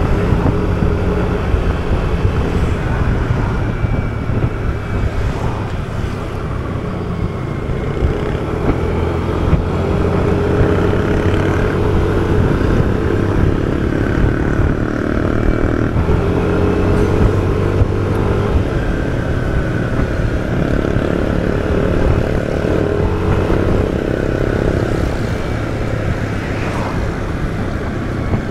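Yamaha scooter's engine running while being ridden at road speed, a steady drone whose pitch drifts up and down a little.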